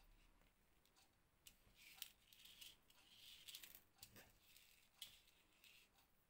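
Faint rustling and light clicks of crochet handwork with thread and seed beads. The sharpest clicks come about two seconds in and again near five seconds, with a dull knock just after four seconds.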